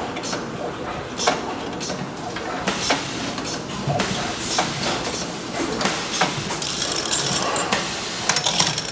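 Canning-line machinery running: continual clicking and clinking of cans and mechanisms, with bursts of hissing lasting a second or so every couple of seconds.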